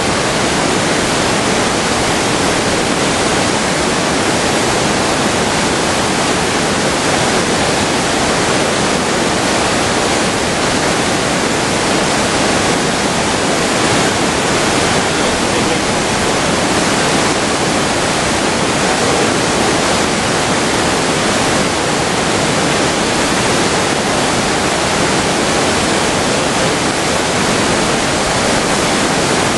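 Whitewater rapids of a mountain river pouring over boulders: a loud, steady rushing roar of water.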